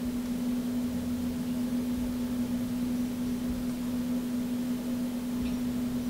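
A steady low hum with an even hiss under it, unchanging throughout.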